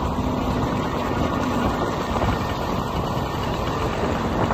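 Motor scooter engine running steadily during the ride, under a constant low rumble of road and wind noise.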